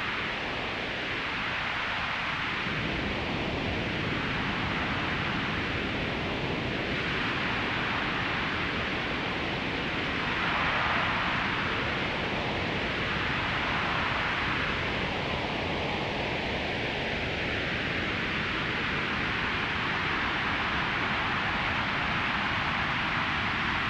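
Synthesized wind-and-rain sound: white noise from a synthesizer's noise oscillator through a notch filter, the notch sweeping up and down every few seconds like gusting wind, slowing into a longer sweep in the second half.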